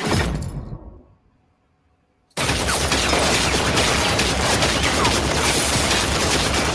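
Film-trailer soundtrack: a hit that dies away to near silence, then, about two and a half seconds in, sudden sustained rapid machine-gun fire that continues unbroken.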